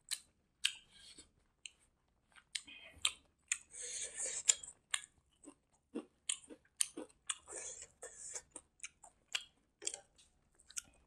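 A person chewing a mouthful of rice and fish close to a clip-on microphone: sharp wet mouth clicks and smacks, a few a second, with two short noisier stretches about four and eight seconds in.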